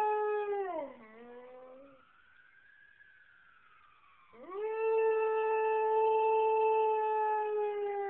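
Siberian husky howling along with an emergency siren. A long held howl drops in pitch and trails off about a second in, then a second long, steady howl starts about four seconds in. In the gap a faint siren rises and falls.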